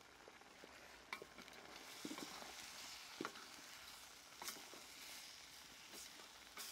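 Crocodile meat stir-frying in a wok: a faint sizzle, with a metal ladle scraping and knocking against the wok about six times as it is stirred.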